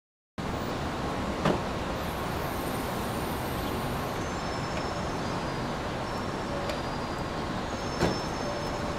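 Steady city street ambience with traffic noise, and two short sharp knocks, one about a second and a half in and one near the end.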